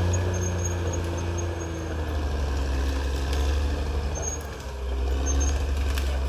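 Caterpillar D6R XL bulldozer's diesel engine running steadily under load, with a brief drop in level about four and a half seconds in before it picks back up.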